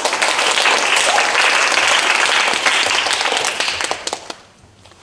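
Small audience applauding, a dense patter of clapping that dies away about four seconds in with a few last claps.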